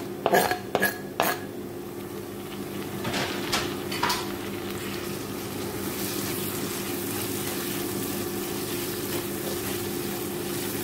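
A utensil knocking and scraping in an iron kadai as chopped tomatoes go in and are stirred, with several sharp knocks in the first second or so and a few more around three to four seconds in, over the steady sizzle of onions frying in coconut oil.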